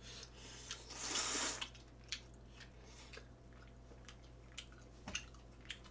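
Noodles slurped in one loud hissing pull about a second in, then soft wet chewing with scattered mouth clicks.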